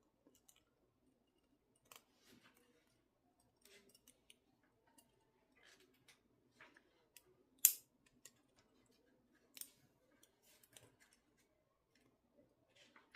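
Faint, scattered metallic clicks and scrapes of a paperclip being worked into a Peerless 700C handcuff to shim it open, with one sharper click a little past halfway.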